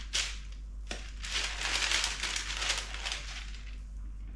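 Baking parchment crinkling and rustling under hands pressing and shaping a lump of seedy dough, loudest in the middle, with a couple of small clicks near the start.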